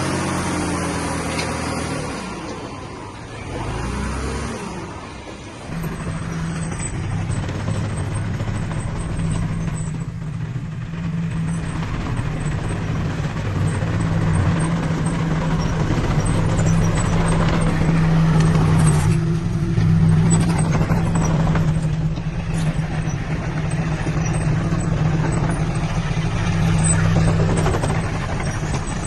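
Heavy diesel engine of earthmoving machinery running, quieter for a few seconds near the start, then running steadily.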